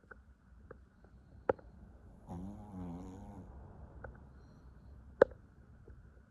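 Dog snoring in its sleep: one long snore with a wavering pitch, a little over a second long, about two seconds in. Two sharp clicks come before and after it, the later one near the end the loudest.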